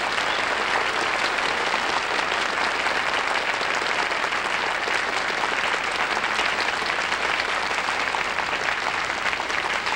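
Studio audience applauding, a steady, sustained round of clapping.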